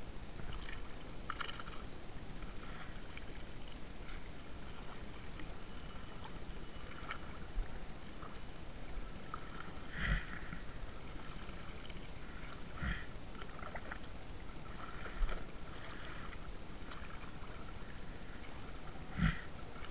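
Gill net being hauled by hand out of the water into a small boat: a steady wash of water with a few short, louder thumps scattered through.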